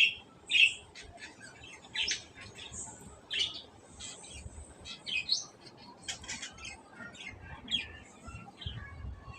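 Birds chirping: short, separate chirps every second or two, with fainter twittering in between.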